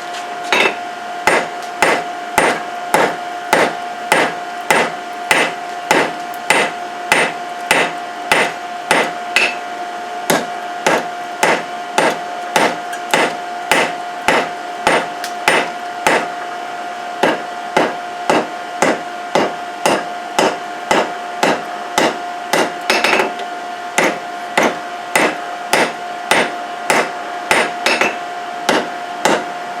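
Hammer striking a hot steel billet on an anvil at about two blows a second, drawing the billet out longer. A steady hum, typical of a forge blower, runs underneath.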